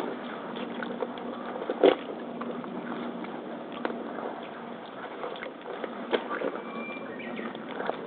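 Tap water pouring and splashing onto rubber hip waders as a hand rubs the mud off, with a few sharp knocks about two, four and six seconds in.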